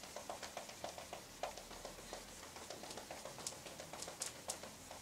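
Marker pen writing on a whiteboard: a quick run of faint short strokes, several a second, with a few sharper clicks near the end.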